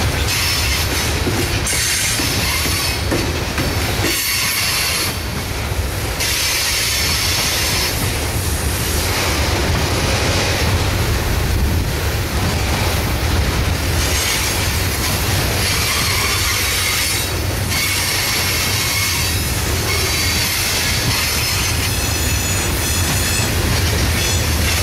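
Freight train of coal hopper cars rolling past close by: a steady rumble and clatter of steel wheels on the rails, with a high-pitched squeal from the wheels at times, most clearly near the end.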